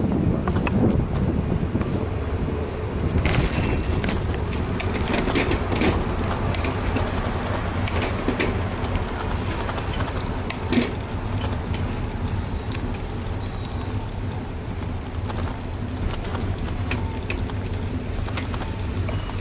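Bicycle riding noise picked up by a bike-mounted action camera: a steady low rumble of wind and tyres on the road, with scattered sharp clicks and rattles and a louder knock about eleven seconds in.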